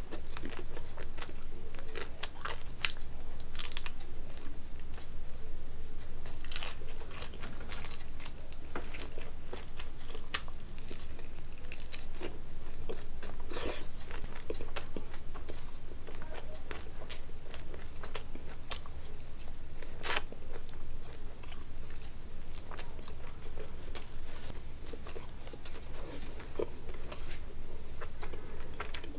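A person chewing fish and rice with the mouth close to the microphone: many irregular wet clicks and smacks of the lips and mouth, over a steady low hum.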